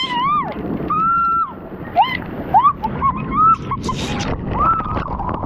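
A series of short high-pitched squeals and yelps over the steady rush of water on a lazy river, with a brief splash-like hiss about four seconds in.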